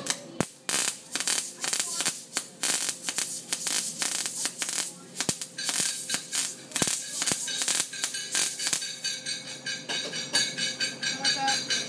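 MIG welding arc crackling irregularly as a bead is laid, with rapid snapping pops that even out into a steadier crackle near the end.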